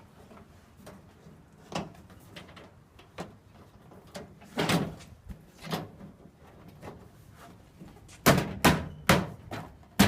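Interior door panel of a 1978 Chevy K10 being fitted onto the door: scattered light knocks and a heavier thud about halfway, then from about eight seconds in a quick run of hard slaps, two or three a second, as the panel is struck by hand to seat it.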